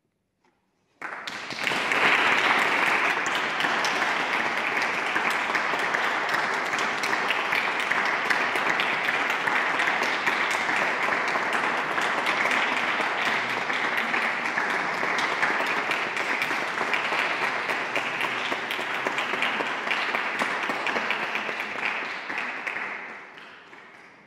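Audience applauding, breaking out suddenly about a second in as dense, steady clapping, and fading out near the end.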